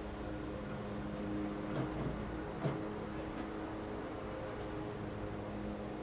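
Crickets chirping in short repeated trills over a steady high background of insect noise, with a low hum and a couple of faint knocks.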